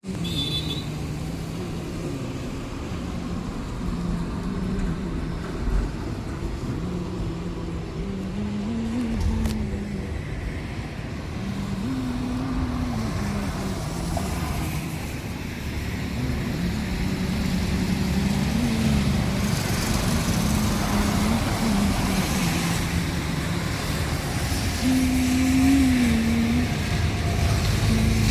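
A motor vehicle's engine running under a steady low rumble, its pitch rising and falling as the revs change.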